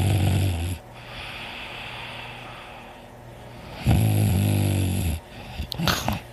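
A man snoring heavily in deep sleep. One loud snore ends about a second in, a second loud snore runs from about four to five seconds in, and a short, sharp snuffling noise comes near the end.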